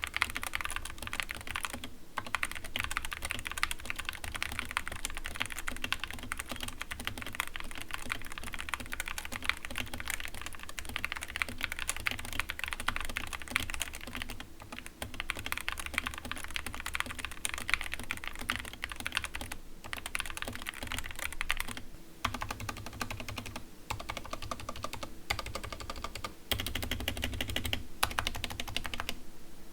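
Fast typing on a stock, unlubed Skyloong GK61 keyboard with Gateron Yellow optical linear switches: a dense, steady run of key clacks with a few short pauses. The owner hears the switches as smooth but with some scratchiness, and its stabilizers as rattling.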